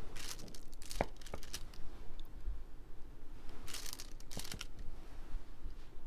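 Clear plastic cover film of a diamond-painting canvas crinkling in short bursts as it is peeled back and laid down again, with a few sharp clicks in between.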